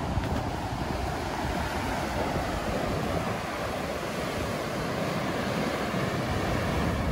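Ocean surf breaking and churning against a rocky cliff cove, a steady rushing wash, with wind buffeting the microphone.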